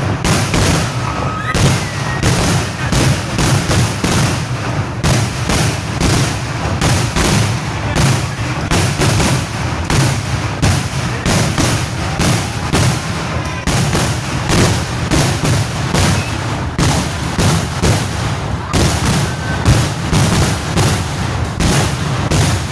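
Firecrackers going off in a continuous rapid barrage, several loud bangs a second without a break, in a Kerala temple fireworks display (vedikettu).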